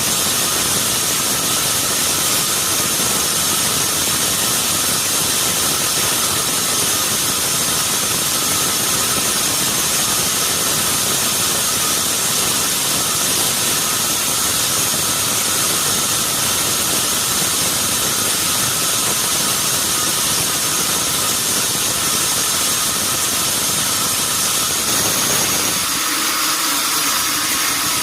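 Sawmill saw running steadily with a loud, even machine noise and a few steady tones. Near the end the low rumble drops away and the sound thins.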